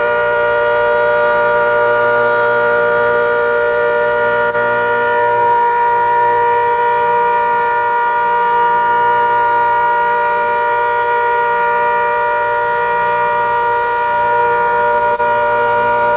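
ACA Hurricane outdoor warning siren sounding a steady chord of several tones, held at full pitch without rising or falling.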